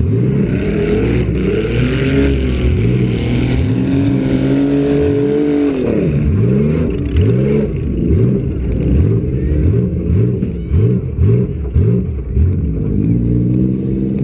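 Several demolition derby car engines revving hard at once, their pitch repeatedly rising and falling, with a few sharp knocks in the middle.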